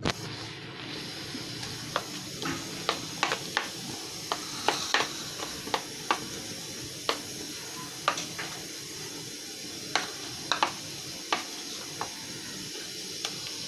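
A steady kitchen hiss with irregular sharp clicks and pops, roughly one or two a second, while cooking oil heats on the stove.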